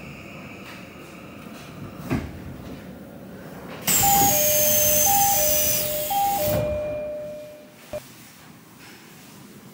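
Train door chime on an Odakyu 3000-series commuter car: a two-note ding-dong repeated three times as the doors open at the station. Under the chime is a loud hiss of air, with a thump a couple of seconds before it.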